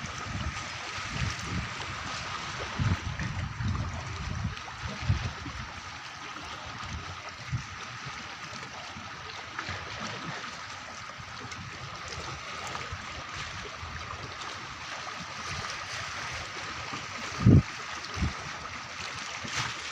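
Water lapping and trickling with a steady background hiss, broken by irregular low thumps, the two loudest close together near the end.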